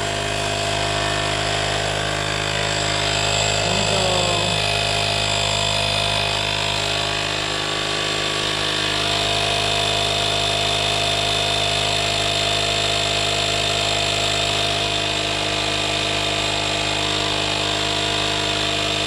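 Audew 12 V portable tire inflator's small electric air compressor running steadily, a continuous hum with a high whine, pumping air into an inflatable. It is running off the car's 12 V socket with the engine off.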